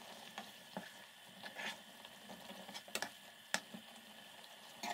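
Metal spoon scraping and clicking against a nonstick frying pan as a coconut mixture is stirred into a simmering curry, with a faint steady sizzle underneath. The clicks come irregularly, a few sharp ones about three seconds in.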